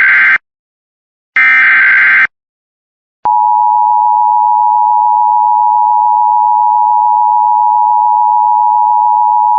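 Emergency Alert System alert: the tail of one screeching SAME data-header burst, then a second identical burst, then a short gap and, about three seconds in, the steady two-tone attention signal, which holds loud and unchanging. It heads a National Weather Service severe thunderstorm warning.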